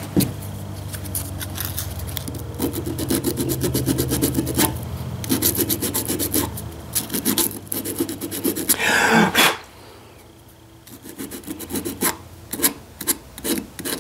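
Quick back-and-forth rubbing and scrubbing strokes as a Ford 2N distributor part is cleaned off by hand. There is a louder harsh rush about nine seconds in, and after it the strokes carry on more softly.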